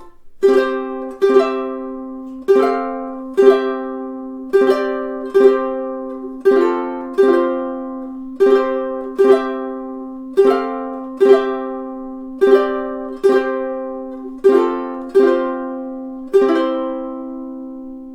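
Flight Voyager all-solid tenor ukulele played acoustically: chords strummed in pairs about every two seconds, each ringing and fading. A final chord is left to ring out near the end.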